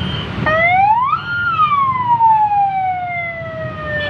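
Ambulance siren giving one wail: the pitch climbs quickly for about half a second, holds briefly, then slides slowly down.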